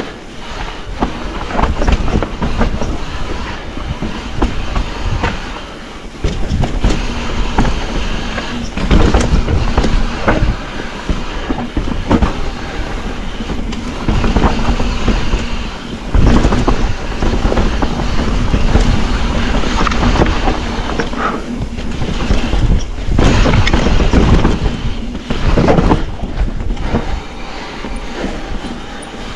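Mountain bike descending a rocky trail: tyres drumming over rock and gravel, with constant irregular clattering and knocks from the bike as it is shaken over the bumps.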